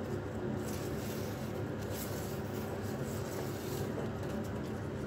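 Faint rustling and scraping as a self-adhesive LED strip is handled and pulled along a cabinet shelf, over a steady low background hum.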